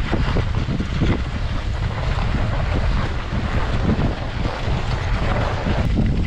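Wind buffeting the microphone of a camera carried by a skier moving downhill, a steady low rumble, with the hiss and scrape of skis sliding over snow.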